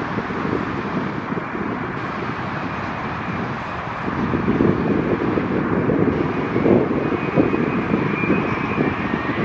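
Jet airliner's engines heard on landing, a steady rushing noise that grows louder about halfway through.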